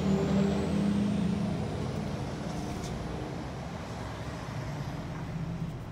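A motor vehicle's engine running, its low hum loudest at first and fading over the few seconds, with a faint high whine slowly rising in pitch.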